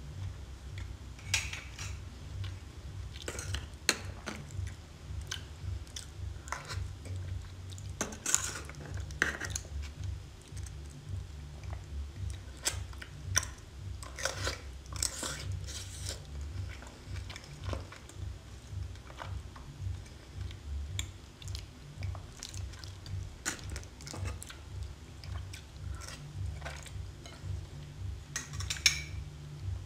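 Close-miked eating of raw seafood: wet chewing and mouth smacks, with short sharp clicks scattered throughout. A steady low hum runs underneath.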